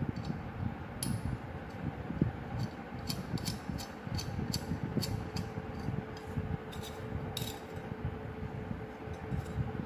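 Light metallic clicks and clinks as hexagonal steel studs are screwed by hand into a steel cutting-blade disc and knock against it, over a low rumble of handling. A faint steady hum comes in about halfway.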